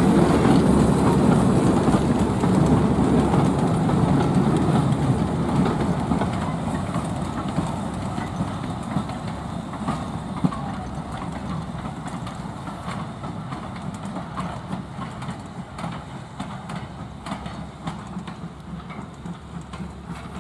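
BR Standard Class 4 2-6-0 steam locomotive working a goods train of wooden wagons and a brake van, the locomotive and wagon wheels clattering over the rail joints. The sound fades steadily as the train pulls away.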